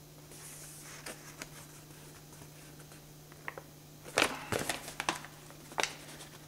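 Paper rustling and crackling as a folded paper instruction leaflet is handled and moved, with a cluster of sharper crackles and taps about four seconds in and another shortly before the end. A faint steady low hum sits underneath.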